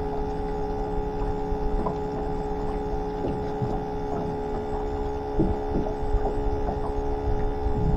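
Bait tank pump whining steadily, a constant hum with several steady tones, with a few faint knocks from about five seconds in.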